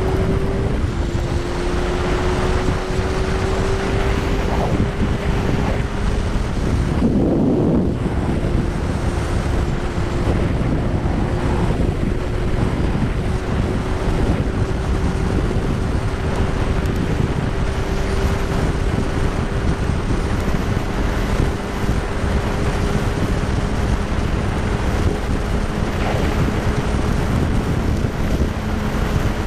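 Kawasaki Z1000 inline-four with an Akrapovič exhaust cruising at highway speed, its engine note holding nearly steady and creeping slightly higher. Heavy wind noise on the microphone runs over it, with a brief gust of extra noise about seven seconds in.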